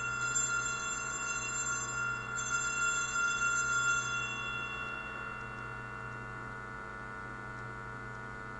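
Altar bell rung at the elevation of the chalice after the consecration: a bright ringing tone of several pitches, struck again about two seconds in, then dying away over a couple of seconds into a low electrical hum.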